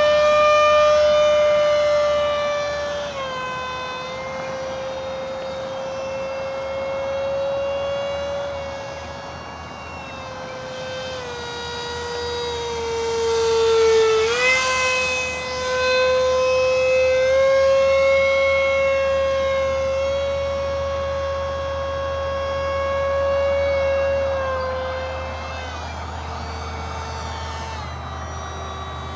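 Electric 50 mm ducted fan of a Skyangel A-4 Skyhawk RC jet whining in flight. Its pitch steps up and down as the throttle changes, and it is loudest about halfway through as the jet passes close.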